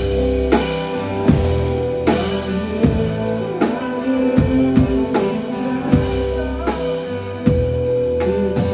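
Band music: a drum kit keeps a slow, steady beat under guitar, with a long held note and low notes sliding downward on the beats.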